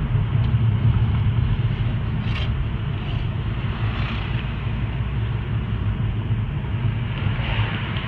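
Steady low engine and road rumble inside the cabin of a moving 8th-generation Honda Civic; the turbo whistler on the intake makes no audible whistle.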